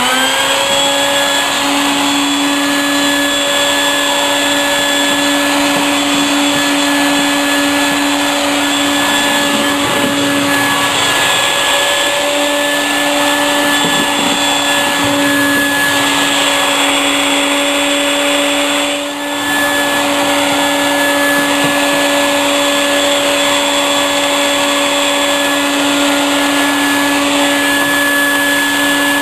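Shop vacuum motor running steadily with a high whine, just come up to speed. It dips briefly once about two-thirds of the way through.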